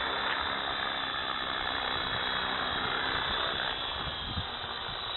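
Electric radio-controlled helicopter hovering just above the ground and settling onto it, a steady motor and rotor hum that eases off about four seconds in as it lands.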